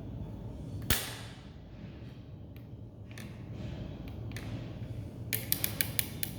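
One sharp click about a second in, then a quick run of about eight small clicks near the end, like a switch or selector knob being turned through its steps, over a low steady hum.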